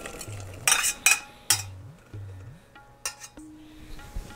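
Metal spoon scraping and clinking against a stainless-steel pressure-cooker pot as cooked lima beans are tipped out of it into a steel saucepan. Several sharp clinks come in the first half, with another about three seconds in.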